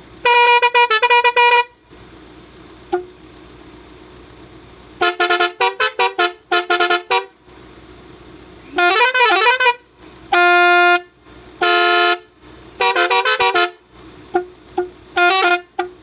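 Roots Hexatone multi-tone air horn on a Swift Dzire playing a series of loud musical blasts: quick runs of short changing notes, one warbling blast, and two longer held notes, ending in a few short toots. Between the blasts the car's engine idles quietly.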